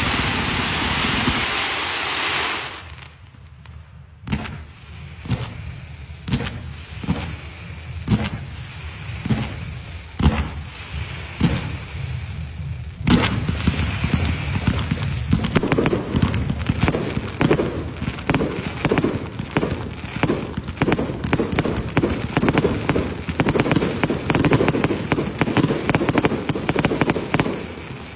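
Firecrackers going off. A loud hiss stops about two seconds in, then single sharp bangs follow about once a second, with a louder bang about halfway. After that comes a long rapid run of cracking pops, as from a string of crackers.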